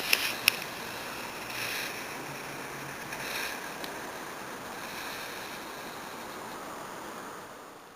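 A ground firework burning with a steady spraying hiss, with a few sharp crackles in the first half-second and swells around two and three seconds in, dying away near the end.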